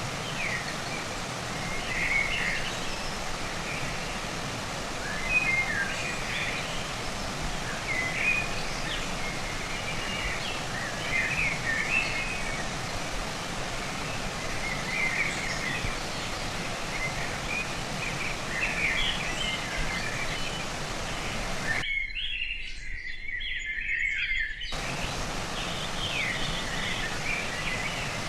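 Steady rush of a flowing stream with a small bird chirping in short phrases every second or two. The water sound drops out for about three seconds near the end while the chirps continue.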